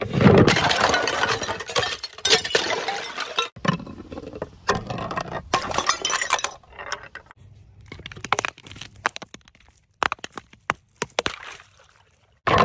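Glass bottles smashing: a loud crash at the start with shards ringing and tinkling for a few seconds, then several shorter shatters and, near the end, a run of sharp glassy clinks, each clip cutting off suddenly.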